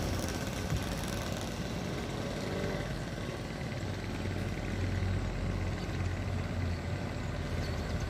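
Hino diesel truck approaching along the road, its engine running steadily and the low rumble growing louder over the second half.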